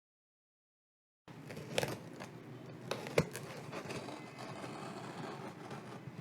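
After a second or so of dead silence, scattered clicks and light rustling of computer parts being handled during assembly, with one sharper click a little past three seconds in.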